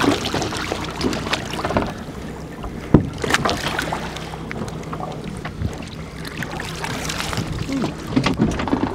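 Boat engine running with a steady low hum under wind and water noise, and a hooked red snapper splashing at the surface beside the hull. A sharp knock about three seconds in.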